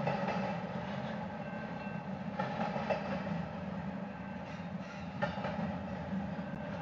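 Double-stack intermodal freight train rolling past, its container well cars making a steady low rumble on the rails, with a few short bursts of wheel clatter.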